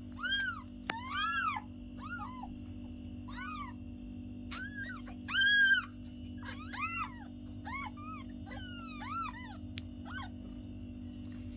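Newborn kittens mewing: a string of short, high, rising-and-falling cries, sometimes two at once, the loudest a little past the middle, dying away near the end, over a steady low hum.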